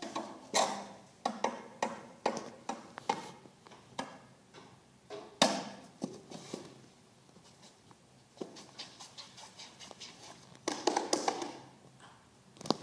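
A performer's wordless gibberish vocal sounds mixed with short taps and knocks from props and movement on a stage floor, coming in irregular bursts with gaps between. The loudest burst is sudden, about five seconds in.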